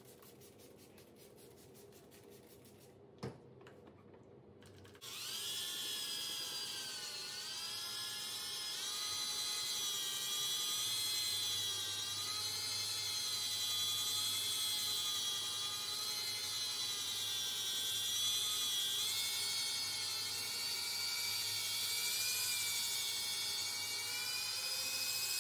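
Electric drill spinning a 400-grit polishing disc on a flexible pad over wet marble. After a single click, the motor starts about five seconds in and runs on with a whine whose pitch wavers up and down as the speed varies.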